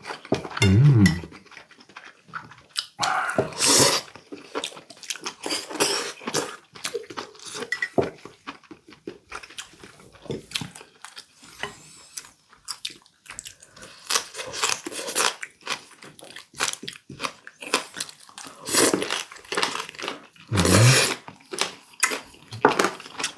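Close-miked chewing and crunching of warty sea squirt (omandungi), its firm, crunchy flesh giving many short crackles and wet bites at an irregular pace.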